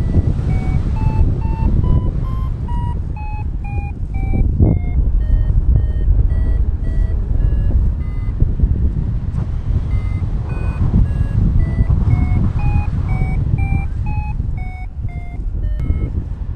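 Paragliding variometer beeping in short tones about twice a second, the pitch climbing and sinking in turn, with a pause about halfway through: the beeping signals the wing is climbing in lift. Steady wind noise rushes on the microphone underneath.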